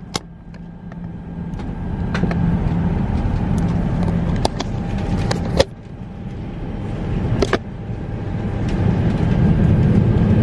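Airliner cabin noise: a steady low rumble of engines and airflow that grows louder over the seconds, with a few sharp clicks and knocks of handling near the seat.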